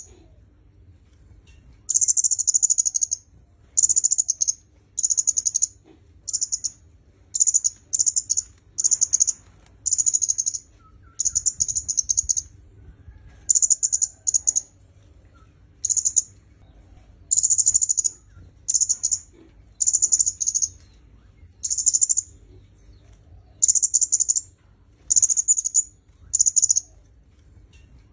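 Kemade kepala merah, a small red-headed flowerpecker, calling over and over: short, very high, rapid buzzy chip-trills, each under a second long, repeated about once a second after a short pause at the start.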